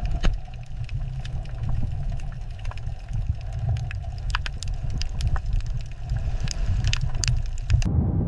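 Underwater ambience: a steady low rumble with scattered sharp clicks and crackles. It cuts off near the end as music comes back in.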